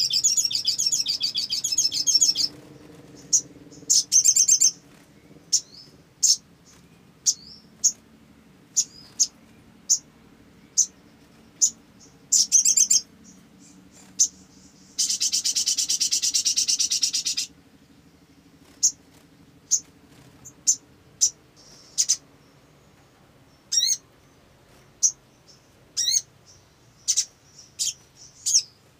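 A sunbird calling: a fast, high twittering trill at the start, then short, sharp chirps roughly once a second, with a second long rapid trill lasting a couple of seconds midway. A faint low hum lies underneath.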